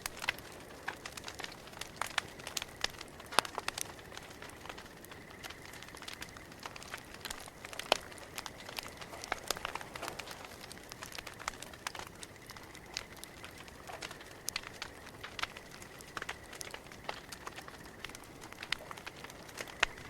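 Campfire crackling and popping, with irregular sharp snaps; the loudest come about three and a half and eight seconds in.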